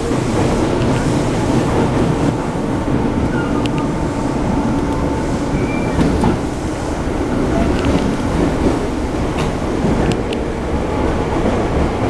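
Interior running noise of a Tobu 9000 series commuter train in motion: a steady rumble of wheels on rail, with a few sharp clicks.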